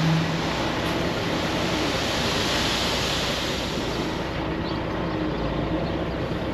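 Gravel sliding out of the raised box of a Kenworth T800 dump truck in a steady rush, with the truck's engine running underneath. The hiss of the sliding stone thins out in the second half as the load finishes pouring.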